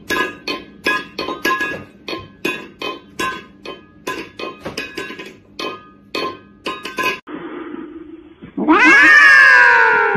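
A metal bowl clanking and ringing against a hard floor, knocked down over and over by a cat's paw about three times a second. Near the end a cat yowls: one loud, long cry that falls in pitch.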